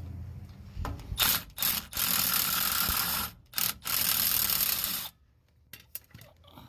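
Ratchet wrench spinning out the last front drive shaft bolt. It runs in several bursts with short gaps and cuts off about five seconds in.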